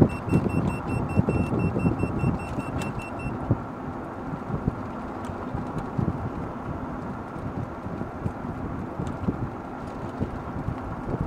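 Club Car DS golf cart driving at speed: wind on the microphone, road rumble and body rattles. A GPS speedometer sounds a rapid, high, even beeping, its 15 mph speed alert, which stops about three seconds in.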